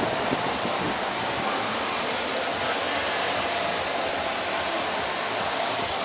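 Steady, even rushing noise with a faint steady hum running through it, like air moving through a running blower.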